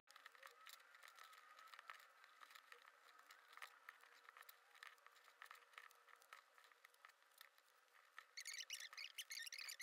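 Near silence with faint scattered ticks and rustle of a crochet hook working jute twine in slip stitches. A faint high chirping comes in near the end.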